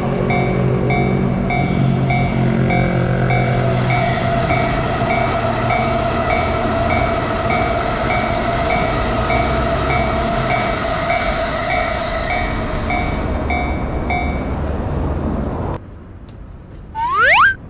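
Japanese railroad crossing warning bell ringing in a steady repeating pulse while an electric train runs past with a low rumble and motor whine. The bell stops and the train noise cuts off abruptly, followed by a short rising whistle-like sweep near the end.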